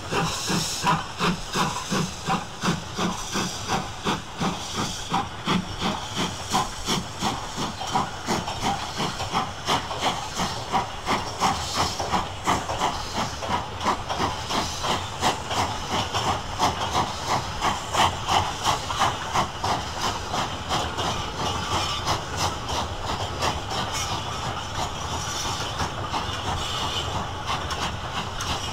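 Two-cylinder LNER B1 class 4-6-0 steam locomotive working a train uphill: a steady beat of exhaust chuffs, about two a second, with steam hiss. The beat softens over the last few seconds.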